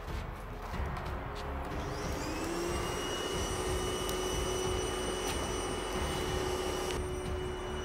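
Electric air blower spinning up about two seconds in, then whining steadily as it forces air through a hose into a coke-fired furnace. A few knocks come before it starts.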